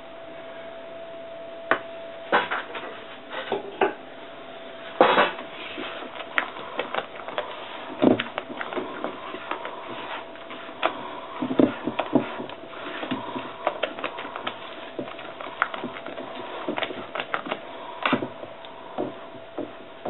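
Spatula stirring and folding thick chocolate sponge batter in a stainless steel bowl: irregular knocks and scrapes of the spatula against the metal, over a faint steady hum.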